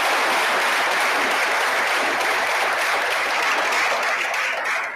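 Crowd applauding steadily, dying away near the end.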